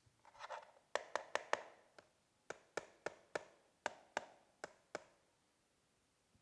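Keys of a gaming keyboard pressed one at a time: about a dozen sharp clicks at an uneven pace, after a short rustle at the start.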